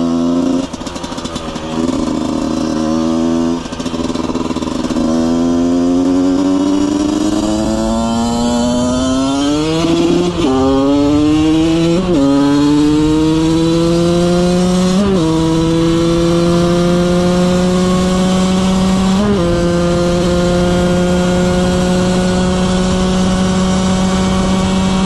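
Husqvarna SM/CR125 single-cylinder two-stroke engine pulling hard up through the gears: the note climbs in pitch, breaks at each shift, and climbs again. For the last several seconds it holds a steady high-revving note.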